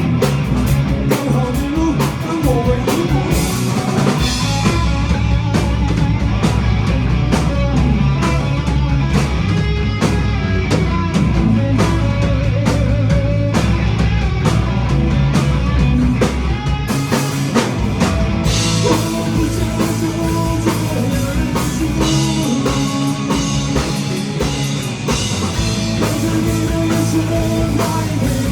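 Live rock band playing a song: drum kit, guitars and bass, with singing at times.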